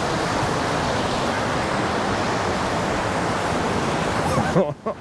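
Fast, high water of Meadow Run rushing down its natural rock waterslide: a loud, steady rush of white water that dips briefly near the end.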